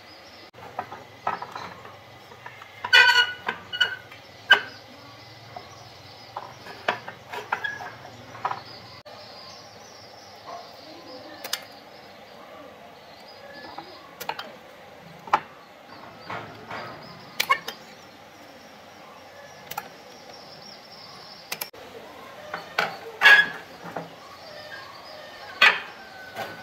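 Scattered light clicks and knocks of tools and metal parts being handled during amplifier repair work, a few ringing briefly, over a steady background hiss.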